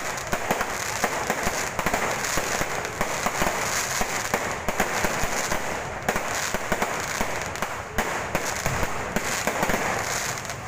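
Aerial fireworks going off in a continuous barrage, many sharp bangs and crackles close together.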